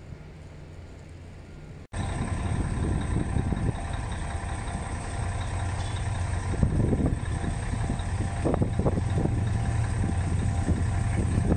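KTM Class 26 diesel locomotive approaching: after a sudden cut about two seconds in, its engine is a steady low rumble that slowly grows louder. Before the cut, only a faint low hum.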